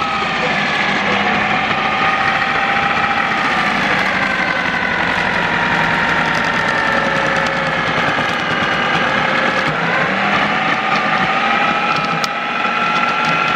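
Ninja Kitchen System 1500-watt blender motor running continuously, a loud whir whose pitch sags slowly and then rises again about ten seconds in.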